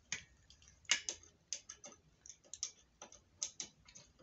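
A rapid, irregular run of light clicks and ticks from handling the metal parts of a work table frame during assembly, the loudest about a second in.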